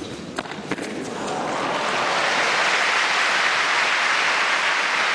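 A couple of sharp tennis ball strikes, then the arena crowd breaks into applause after the point, swelling about a second in to a loud steady clapping that cuts off abruptly at the end.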